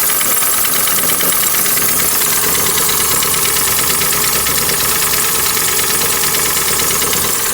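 Hyundai ix35's G4NA 2.0-litre petrol four-cylinder engine idling with a loud, steady rapid knock, a diesel-like clatter. The engine is worn and burning oil, and is about to be torn down for a major overhaul.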